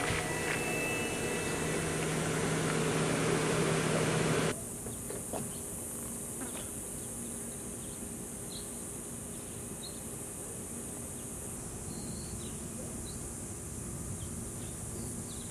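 A steady hiss with a low hum that cuts off suddenly about four and a half seconds in, followed by quiet outdoor ambience with scattered faint high bird chirps.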